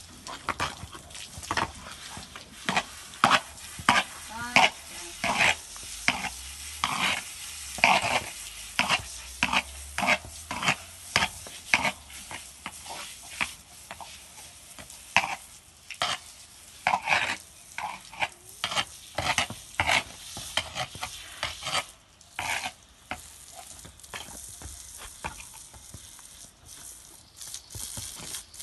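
Water spraying from a garden hose nozzle onto horses in short, irregular spurts, about one or two a second, thinning out near the end.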